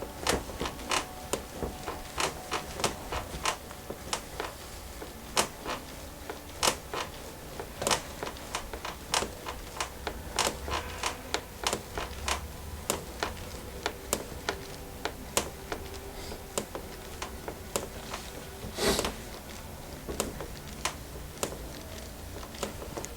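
Hands massaging skin during a massage: an irregular string of short soft clicks and brief rubs, a few a second, with one longer rub about 19 seconds in.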